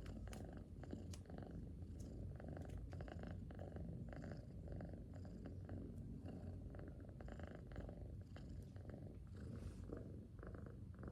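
Domestic cat purring softly and steadily in its sleep, with its breathing, a continuous low rumble dotted with faint scattered clicks.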